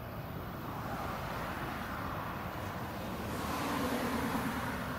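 Claas Lexion 770 TT combine harvester running under load while threshing rapeseed, a steady mechanical drone heard from across the field. It grows a little louder in the second half.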